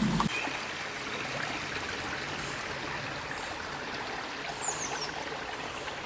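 Shallow creek water trickling and flowing steadily through and past a beaver dam of piled sticks.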